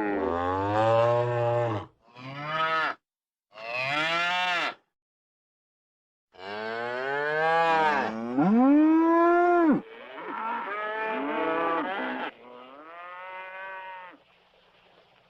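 Buffalo lowing: a run of about six drawn-out calls with short pauses between them, the longest and loudest in the middle.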